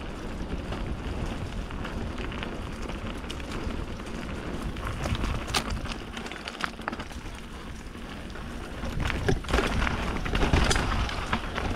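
Intense Tracer enduro mountain bike rolling over a wet, muddy dirt trail: a steady hiss of tyres on soaked ground with many sharp clicks and knocks from the bike. It grows louder about nine seconds in.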